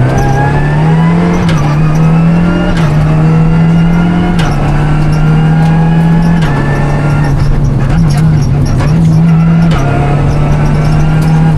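Renault Clio Rally5's engine, heard from inside the car, running hard at high revs on a rally stage. Its pitch steps up and down several times as the driver changes gear and lifts off, while a higher whine climbs slowly above it.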